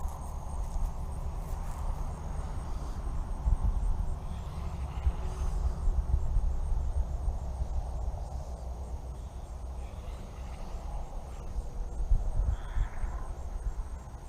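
Outdoor ambience: faint, steady insect chirring over an uneven low rumble.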